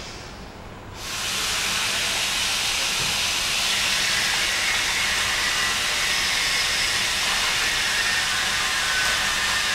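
A loud, steady hiss that starts abruptly about a second in and holds unchanged.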